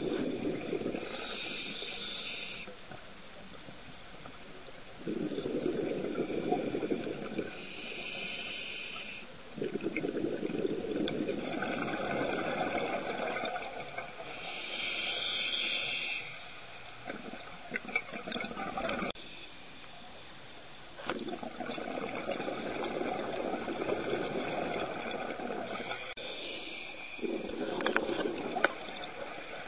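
Scuba diver breathing through a regulator underwater. Short hissing inhalations alternate with longer stretches of bubbling exhalation, about four breaths in slow succession.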